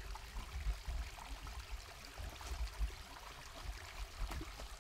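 Small forest creek trickling faintly over rocks, with a low uneven rumble underneath.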